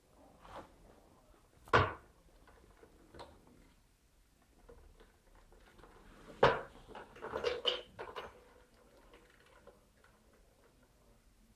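Clear plastic hamster exercise ball knocking and rolling on a wooden floor as a kitten paws and pushes it: a sharp knock about two seconds in, another past the middle followed by about a second of clattering, and quiet in between.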